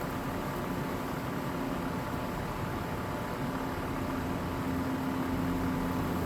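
Steady mechanical hum with a few held tones, a lower tone growing stronger about halfway through.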